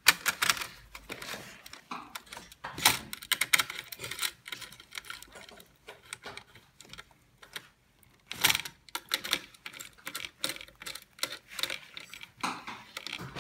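A screwdriver tightening the ring-terminal screws on a laser machine's control board: irregular small metal clicks and scrapes as the tool turns and the wire lugs shift.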